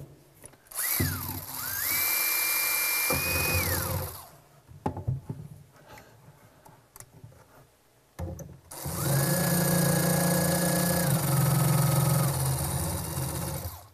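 Cordless drill run twice, each time spinning up to a steady high whine and winding down, while drilling through the cabinet back so concrete screws can fix it to the wall. In the second, longer run the pitch drops partway through. A few faint knocks come between the runs.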